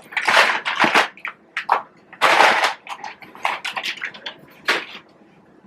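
Irregular bursts of crunching and rustling close to the microphone as a fast-food meal is eaten and its wrappers handled.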